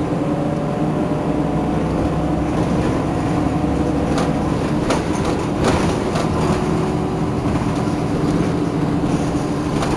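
Irisbus Citelis Line city bus with a Euro 5 diesel engine idling steadily while stopped, with a few short clicks near the middle.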